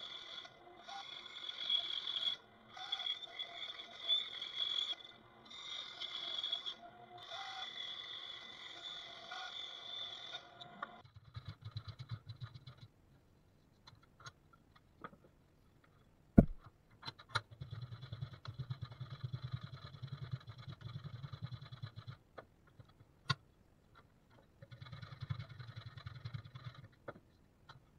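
A bandsaw runs and cuts a taper into a wooden table leg with a steady sound. About eleven seconds in this gives way to a hand plane smoothing the sawn edge: separate scraping strokes with short pauses between them.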